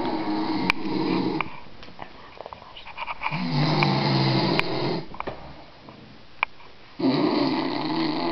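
A sleeping man snoring loudly: three long snores, each about a second and a half, coming roughly every three and a half seconds.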